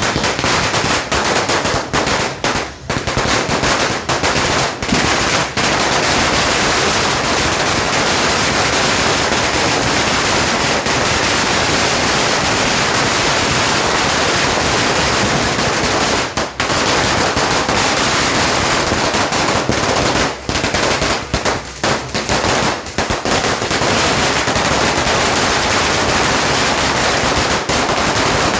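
Firecrackers going off in a fast, nearly unbroken crackle of bangs, loud throughout, with a few short gaps.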